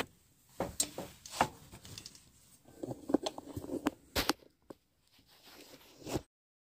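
Scattered clicks and knocks, with a stretch of rubbing and rustling in the middle, from things being handled in a small room. The sound cuts off abruptly to total silence near the end.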